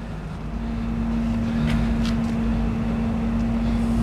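An engine running steadily: a constant hum over a low rumble, slowly growing a little louder, with a couple of faint ticks.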